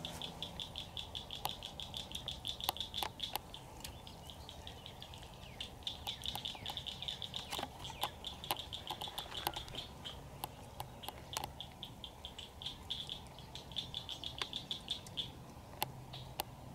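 Rapid, high-pitched chirping trills from small wildlife, coming in three long runs, with scattered sharp clicks.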